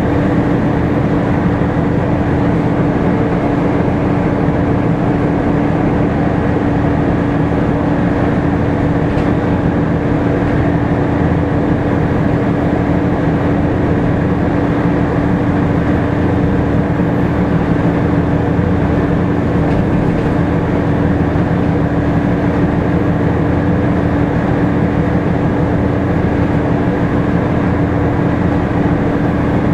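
Volvo B7TL double-decker bus's straight-six diesel running, heard from inside the lower saloon, with its loud engine cooling fan giving a constant hum at one pitch over the engine and road rumble.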